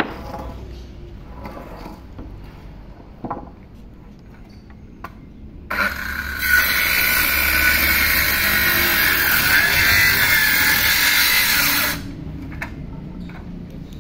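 Handheld electric circular saw spinning up about six seconds in and cutting through a wooden plank for about six seconds, a loud steady whine-and-rasp that stops sharply. Before it come a few light knocks as the plank is set in place.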